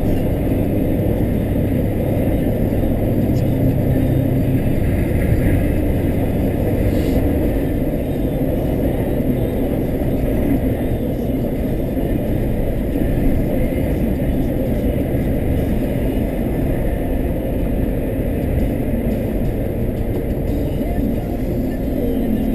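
A car driving at a steady pace: a constant low road and engine rumble with no sudden changes.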